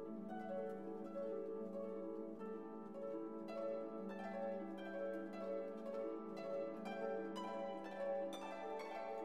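Background instrumental music: plucked, harp-like notes over held string tones, growing busier after the first few seconds.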